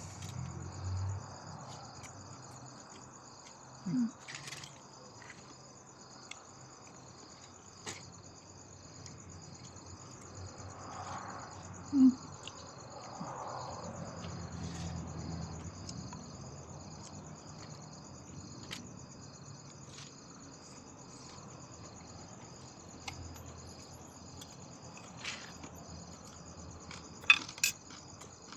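Crickets chirping steadily in a fast, even pulse, with scattered small clicks and knocks. The loudest thing is a brief low-pitched sound about twelve seconds in, with a similar shorter one near the start and a couple of sharp clicks near the end.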